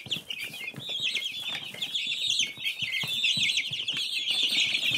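A dense chorus of many small birds chirping, their short high calls overlapping without a break.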